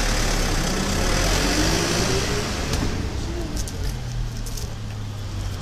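Street traffic noise: a passing vehicle's rush swells over a steady low rumble for the first few seconds, then eases off.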